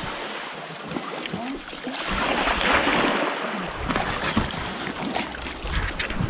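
Sea water washing and splashing at the shore of a small rocky cove, swelling and easing, with a few sharp knocks near the end.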